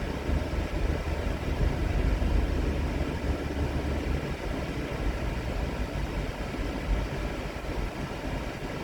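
Steady low rumble of a vehicle engine running, with a constant noise haze over it.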